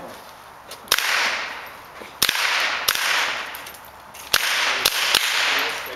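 Rifle shots fired at an uneven pace: four loud cracks with a couple of fainter ones between them. Each loud shot is followed by a long echo that fades over about a second.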